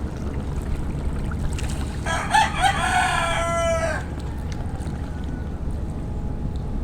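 A rooster crows once, a cock-a-doodle-doo lasting about two seconds that starts about two seconds in, over a steady low background rumble.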